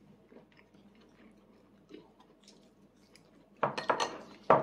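Light clicks of plastic training chopsticks against a plastic divided plate, then a louder clatter of tableware about three and a half seconds in and a single sharp knock near the end.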